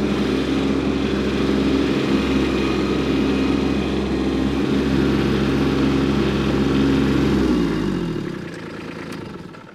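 Kubota B2601 compact tractor's three-cylinder diesel engine running steadily at a stationary tractor, then shut off about seven and a half seconds in, its pitch falling as it runs down to a stop.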